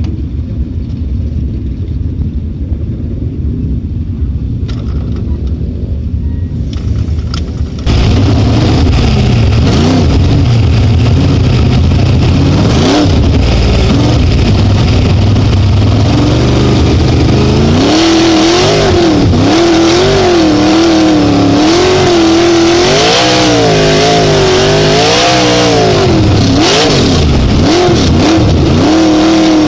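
Sprint car racing engine heard from inside the cockpit during hot laps. It rumbles at first, then about eight seconds in becomes suddenly much louder. From the middle on, its pitch rises and falls over and over as it revs on the straights and eases off for the turns.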